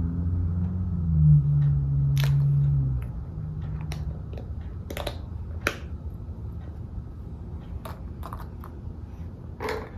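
Scattered small sharp clicks and crinkles of foil-wrapped surprise eggs being handled and opened. A low steady hum runs under the first three seconds.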